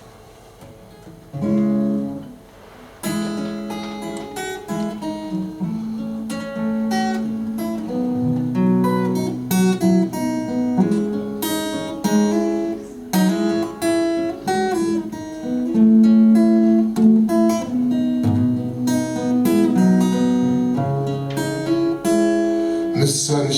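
Acoustic guitar playing an instrumental introduction, a first soft chord and then steady fingerpicked and strummed chords from about three seconds in.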